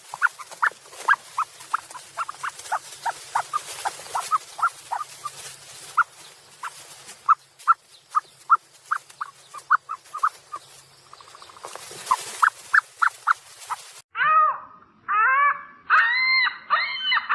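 Ostriches calling: a long run of short chirping peeps, two or three a second, then, after an abrupt change about fourteen seconds in, louder drawn-out calls that rise and fall in pitch.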